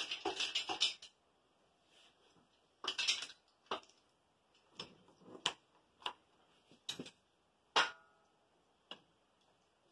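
Metallic clicking, fast and dense for about the first second, then about nine scattered clicks and light clanks. One of them, late on, rings briefly like struck metal. The sounds come from hand work on a 12-valve Cummins cylinder head hanging from a hoist chain.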